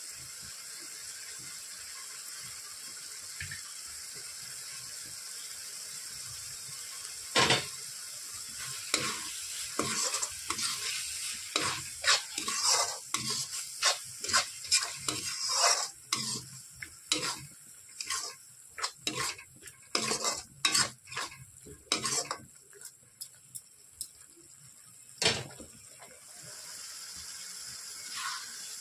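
Curry masala sizzling steadily in a metal kadhai. About seven seconds in, a metal spoon starts stirring and scraping it, with many sharp knocks against the pan. The stirring stops in the last few seconds, leaving the sizzle.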